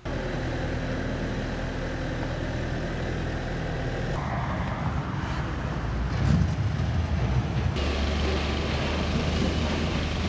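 Outdoor ambience dominated by a steady engine hum and traffic noise. The sound changes abruptly about four and eight seconds in.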